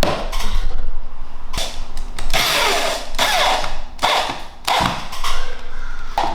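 Power drill/driver running in several short bursts, driving drywall screws through a drywall sheet into the wall framing.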